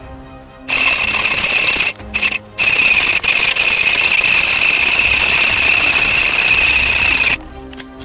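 Power tool, most likely an angle grinder, cutting through a steel pipe held in a vise to take off its sharp threaded end: a steady high whine over a hiss of cutting. It starts about a second in, drops out twice briefly around two seconds in, and stops shortly before the end.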